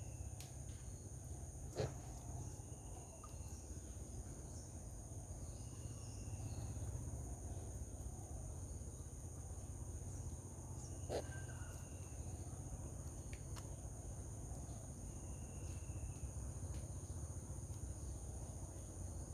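Insects droning steadily at a high pitch, while a bird repeats a short, level whistled note about every four seconds. Two sharp knocks, near the start and about halfway through, are the loudest sounds.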